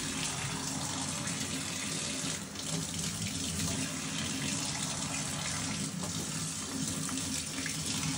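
Kitchen faucet running steadily into a plastic sink as small cold-blued steel parts are rinsed under the stream, washing off the bluing solution to stop the chemical reaction.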